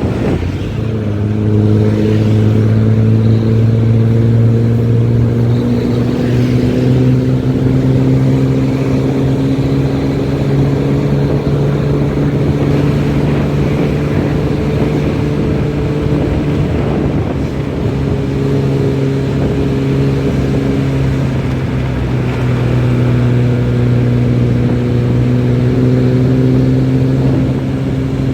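Diesel engine and loud 'ngorok' exhaust of a Nissan-chassis bus running under load, a steady low drone. Its pitch slowly rises, drops back about seventeen seconds in, then climbs again.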